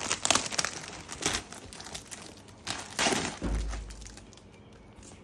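Plastic poly mailer bag crinkling and rustling in the hands as its clear tape is pulled off, in uneven bursts, with a louder burst about three seconds in before it goes quiet near the end.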